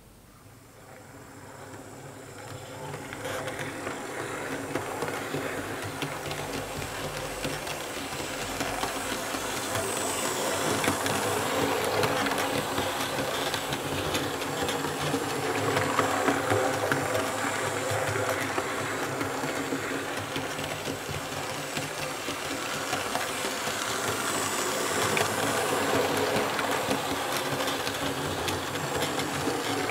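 Märklin H0 E41 electric locomotive and coaches running on Märklin K-Track laid on 3 mm cork underlay: motor whir and wheel rumble and clatter on the rails. It starts faint and builds over the first few seconds, then swells and fades as the train rounds the loop.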